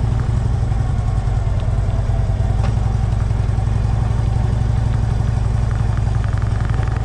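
Harley-Davidson Electra Glide Ultra Classic's V-twin engine running steadily, with an even, fast pulse from its firing strokes.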